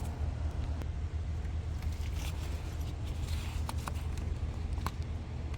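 Plastic clicks and light scraping as the release latches of a PCV hose quick-connect fitting are worked open by hand, with three sharp clicks in the second half. Underneath is a steady low rumble.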